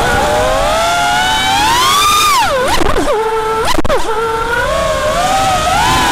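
FPV racing quadcopter's brushless motors and propellers whining, the pitch rising and falling with throttle. About halfway through the pitch drops sharply and holds briefly before climbing again.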